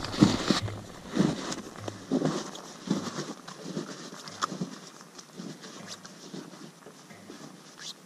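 Winter boots crunching through snow at a steady walking pace, the steps growing fainter as the walker moves away.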